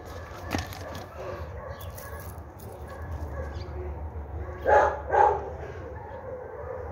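A dog barks twice in quick succession, about five seconds in.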